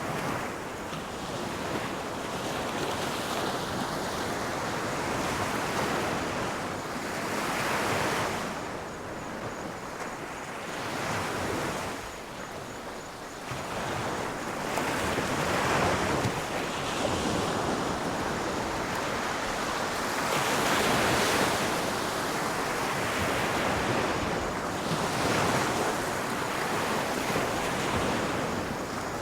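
Ocean waves breaking on a shore, the wash swelling and falling back in slow surges every few seconds.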